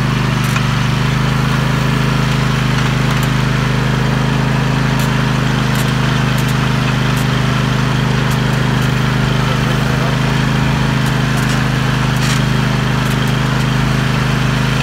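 Riding lawn mower engine running steadily at a constant speed while the mower drives along a path, a loud, even drone.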